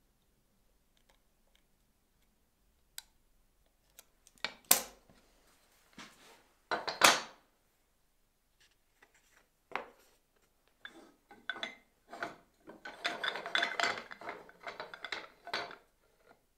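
Pine workpieces and hand tools handled on a wooden workbench: scattered knocks and clicks of wood on wood, two louder short scrapes about five and seven seconds in, and a longer stretch of scraping near the end.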